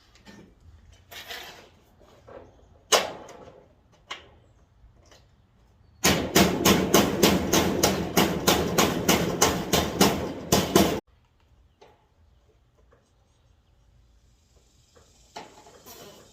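Power drill cutting the hole for a 2x3 downspout outlet through a rain gutter, running hard for about five seconds midway with a rapid pulsing of about four beats a second, then stopping abruptly. Scattered handling knocks come before it, one of them sharp.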